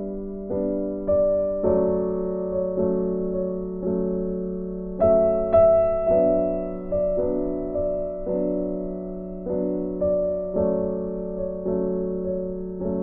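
Background music: a gentle piano or electric piano melody, notes struck about once a second and fading between strikes.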